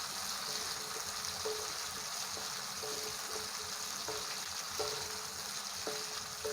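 Chopped garlic, shallots and bird's-eye chilies sizzling in hot oil as they are sautéed: a steady hiss with faint short clicks every second or so.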